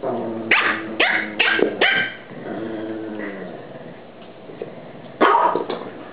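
Pekingese dogs play-fighting: low wavering growls broken by a quick run of four sharp barks in the first two seconds and another bark about five seconds in.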